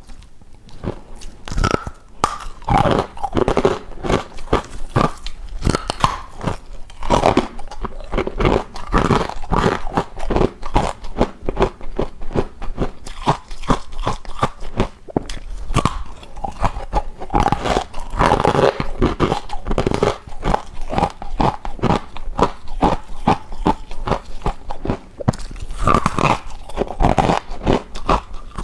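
Person biting and chewing ice from a deep freezer close to the microphone: a continuous run of crisp, rapid crunches.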